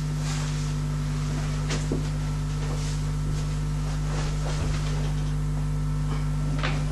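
Steady low electrical hum with a few light clicks and knocks.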